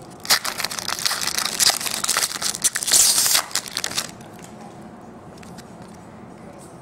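Foil wrapper of an SP Rookie Threads football card pack being torn open and crumpled by hand, a busy crinkling crackle for about four seconds that then drops away to quiet.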